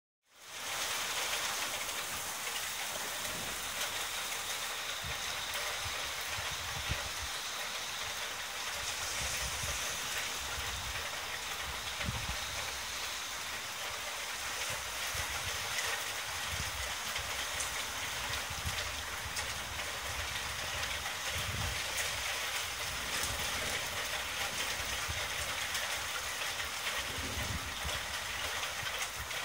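Steady rain falling during a thunderstorm, an even hiss throughout, with low rumbles swelling and fading underneath every few seconds.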